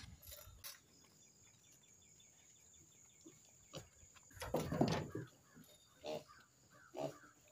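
Faint pig-pen sounds from a sow and piglets, with one louder short pig grunt about two-thirds of the way in and small birds chirping through the latter part.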